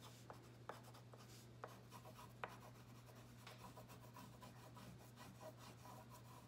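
Faint scratching of an oil pastel rubbed back and forth over paper in colouring strokes, with a few light ticks.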